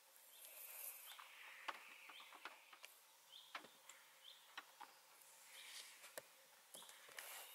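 Near silence in a quiet forest, broken by faint, irregular clicks and a few short, high chirps.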